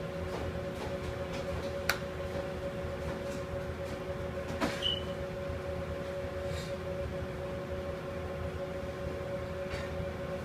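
Steady machine hum, two held tones over a low rumble. There is a sharp click about two seconds in, and a knock followed by a brief high squeak a little before five seconds in.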